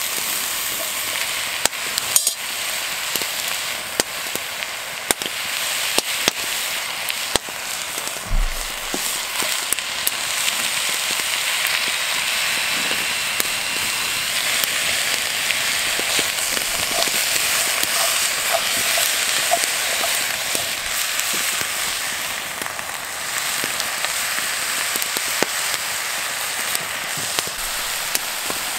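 Meat searing in a cast-iron Dutch oven over a campfire: a steady frying sizzle with frequent sharp pops and crackles.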